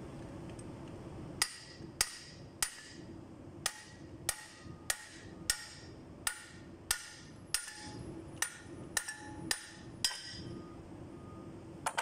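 Hand hammer striking a Cummins QST30 fan pulley assembly: about fourteen sharp metallic blows at roughly half-second intervals, each ringing briefly, then one more near the end. The blows are knocking the pulley loose from its tapered hub.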